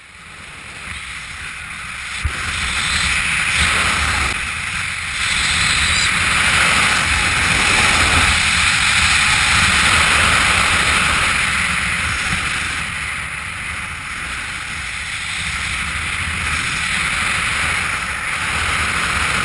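Wind rushing and buffeting over an action camera's microphone during a fast speedriding descent. It builds over the first few seconds and eases a little in the later part.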